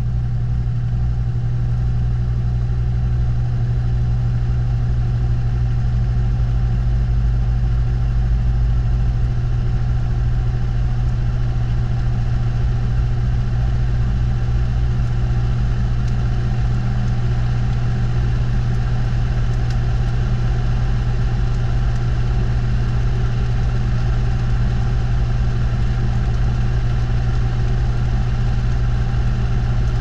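Washing machine drum spinning at a steady speed, heard from inside the drum: a loud, even hum with a strong low drone that holds unchanged throughout.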